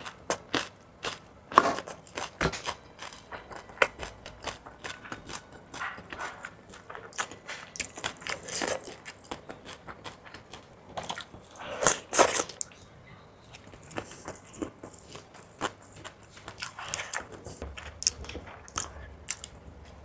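Close-up eating sounds: fried fish balls being bitten and chewed, with crunches and many short wet mouth clicks, and a few louder bites.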